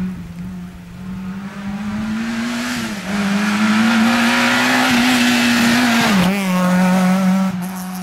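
Renault Mégane rally car engine approaching hard under load, growing louder and climbing in pitch. It is loudest a few seconds in, then drops sharply in pitch about six seconds in as the car goes by and pulls away.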